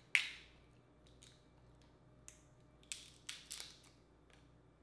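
Dungeness crab shell being cracked and pulled apart by hand. There is a sharp crack just after the start, a couple of small snaps, then a quick run of cracks about three seconds in.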